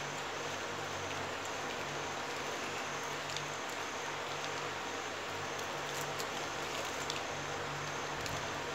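Steady hiss with a few faint, light clicks scattered through it: plastic basket-weaving wire strands being pulled and knotted by hand.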